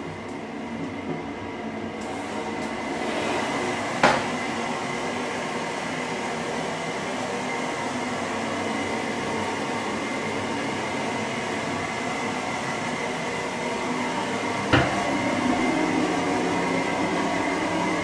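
A steady mechanical hum with a thin high whine in it, getting a little louder a few seconds in. Two sharp knocks break it, about four seconds in and near the end.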